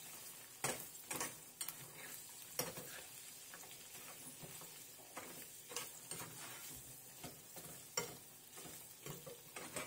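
Baby carrots and runner beans sizzling in butter in a hot frying pan, a steady faint hiss, with several sharp scrapes and knocks of a slotted metal turner against the pan as the vegetables are tossed.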